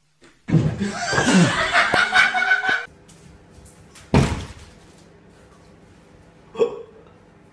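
People laughing hard for about two and a half seconds. About four seconds in, a single sharp thud as a cat runs into a closed glass sliding door, followed by a short voice sound near the end.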